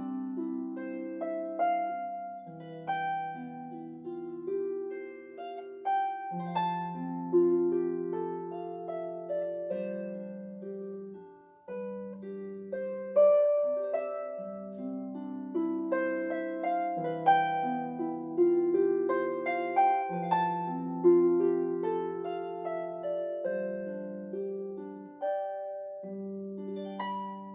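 Solo lever harp, a Blevins 38-string, playing a gentle melody over broken chords: each plucked note starts sharply and rings on as it fades, over a steady low bass line. The music thins out near the end.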